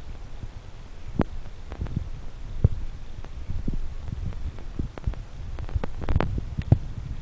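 Irregular light knocks and thumps over a low rumble, with a quick cluster of sharper ones about six seconds in.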